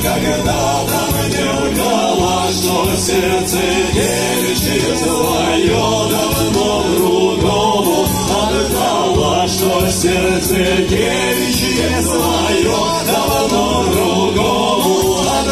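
Music: a choir singing a song with instrumental backing and a steady beat.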